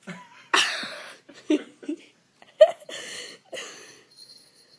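A person laughing in a string of short, breathy bursts, the loudest a little after half a second in and again at about two and a half seconds.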